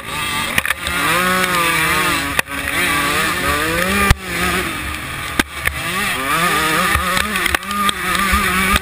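125 cc two-stroke motocross bike engine at race speed, its pitch rising and falling again and again as the throttle is opened and closed through the track. A few sharp knocks cut through the engine sound.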